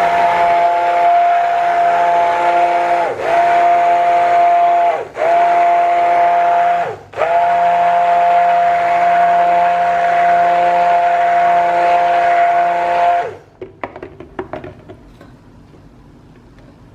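Stick blender running in soap batter, blending it toward thick trace: a loud steady motor whine whose pitch sags and recovers three times as it is pulsed. It stops about thirteen seconds in, followed by a few light clicks.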